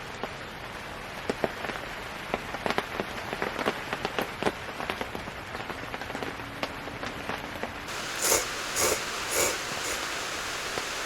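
Rain pattering on tent fabric, a steady hiss with many sharp drop ticks; from about eight seconds in the hiss grows brighter with a few louder bursts.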